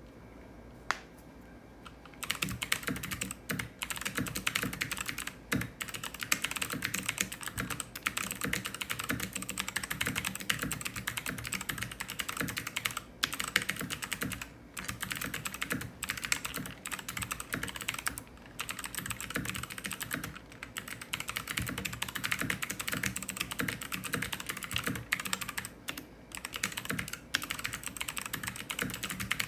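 Glorious GMMK TKL mechanical keyboard with clicky Kailh Speed Bronze switches and black PBT keycaps being typed on fast and continuously. A single keypress comes about a second in, the rapid typing starts about two seconds in, and it stops briefly a few times.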